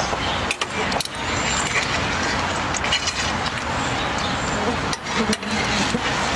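Hot oil sizzling in a frying pan over a wood fire, a steady hiss, with a few sharp clicks.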